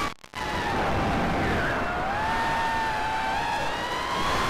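Cobra 2206 2100kv brushless motors of an FPV racing quadcopter whining with triblade props, heard from the onboard camera. The sound cuts out briefly just after the start as the throttle is chopped, returns lower in pitch, then rises slowly with throttle.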